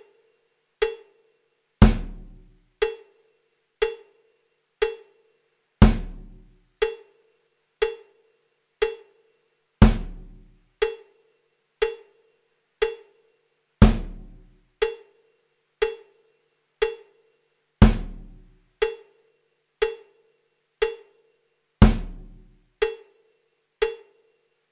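Sparse percussion-only holding music: one hit about every second, with a deep drum on every fourth beat and lighter pitched knocks between, and silence after each hit.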